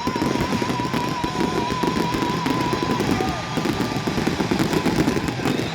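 Fireworks crackling and popping in a rapid, dense run of small bangs over background music, with a high wavering tone through the first few seconds.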